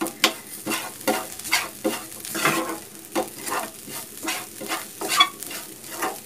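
A steel spoon stirring and scraping a dry coconut-and-spice masala around a non-stick pan in quick repeated strokes, about two or three a second. The mix is roasting in a little oil and sizzles lightly.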